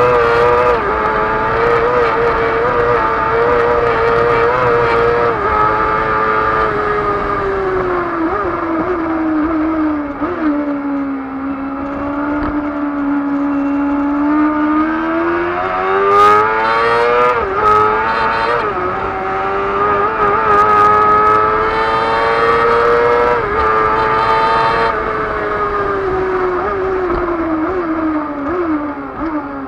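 Race car engine heard from onboard at racing speed, its revs rising and falling through the gears. The revs sink to a low point about eleven to fourteen seconds in, climb again, and fall away near the end. A few short bursts of hiss sound over the engine in the middle stretch.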